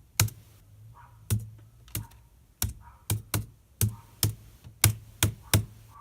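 Slow, separate clicks at a computer's keys or buttons, about two a second and irregularly spaced, over a faint low steady hum.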